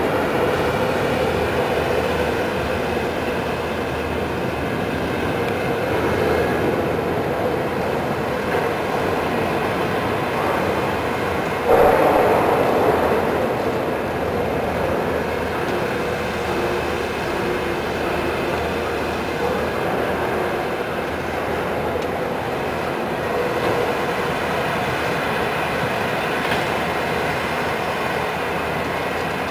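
Amphibious excavator's diesel engine running steadily while it works, a continuous mechanical drone. About twelve seconds in a sudden louder burst rises over it and fades within a second or two.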